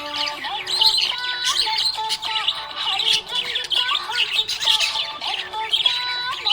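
Budgerigars chirping and warbling in a rapid, continuous chatter, with a simple stepping melody playing underneath.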